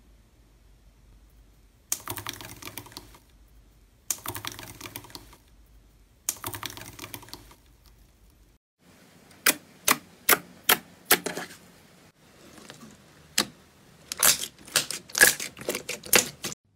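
Gold foil crinkling on clear slime as a wire masher presses down on it, three times about two seconds apart. Then a run of sharp clicking pops as a hand presses glossy purple slime, sparse at first and quicker near the end.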